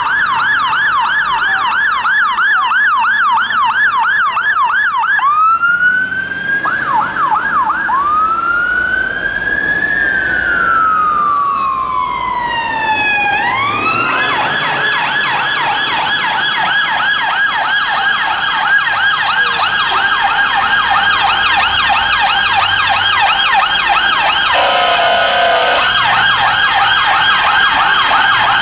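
A fire engine's siren yelping fast, then slowing into one long rise-and-fall wail. After a cut, a police car's siren yelps fast, with a short low bull horn blast near the end.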